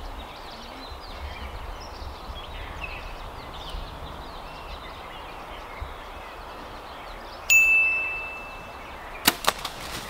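A compound bow is shot about seven and a half seconds in: the string releases with a sudden snap and a high ringing tone that dies away over about a second and a half. Two sharp knocks follow close together near the end.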